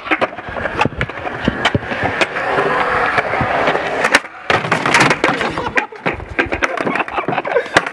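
Skateboard wheels rolling over smooth concrete, with a sharp clack of the board about four seconds in as the skater pops over a traffic cone. Around six seconds come a slam and the board clattering as he falls.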